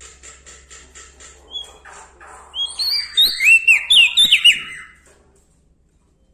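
A small songbird singing: a run of quick, dry chips, then a loud burst of clear whistled notes that slur up and down, stopping about five seconds in.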